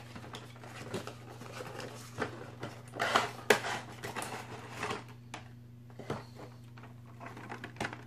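Cardboard box being torn open and a clear plastic package slid out and handled: scattered rustling, scraping and clicks, loudest about three seconds in and quieter in the second half.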